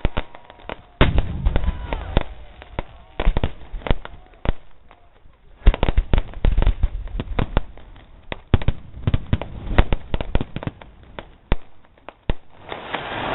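Fireworks going off in rapid, crackling volleys of sharp bangs, with a short lull about a third of the way in and another near the end.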